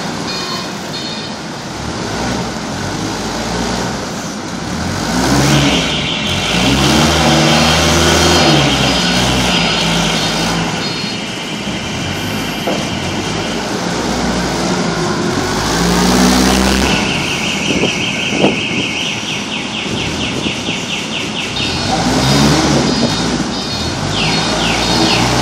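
Linde forklift engine revving up and settling back several times as the truck drives and works its hydraulic paper roll clamp. A steady high tone sounds for several seconds at a time, and there is one sharp click about two-thirds of the way through.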